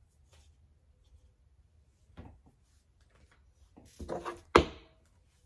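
A few knocks. There is a soft one about two seconds in, a quick cluster about four seconds in, and then one sharp, louder knock with a short ring.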